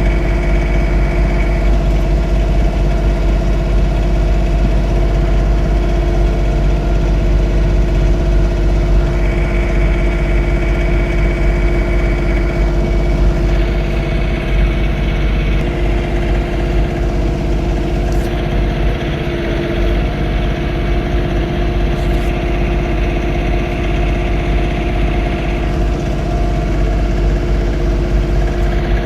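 John Deere 3046R compact tractor's diesel engine running steadily under load with the snowblower, a constant low drone with a higher whine that fades in and out.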